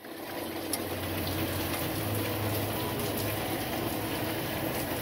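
Steady rain falling, with a faint low hum underneath and a few light ticks.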